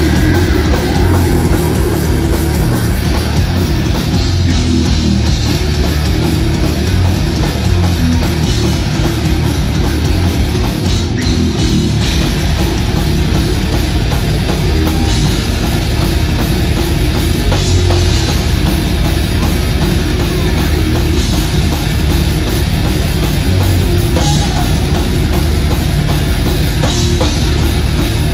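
Death metal band playing live: heavily distorted electric guitars over a drum kit, loud and unbroken.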